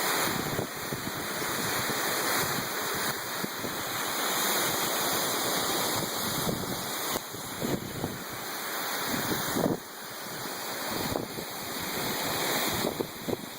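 Pixquiac waterfall pouring down a rock face, a steady loud rush of falling water heard close to the foot of the fall.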